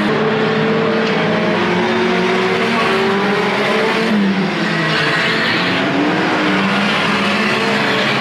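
Engines of a pack of banger racing cars running hard together, a dense, steady drone of many overlapping engine notes rising and falling in pitch as the cars accelerate and lift.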